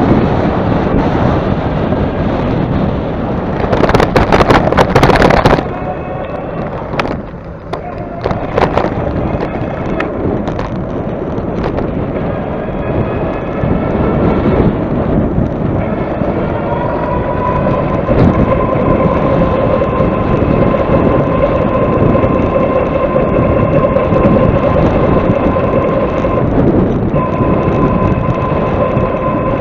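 Heavy wind buffeting on the microphone while riding into the wind, with a brief louder gust about four seconds in. Under it a whine rises in pitch around the middle and then holds steady.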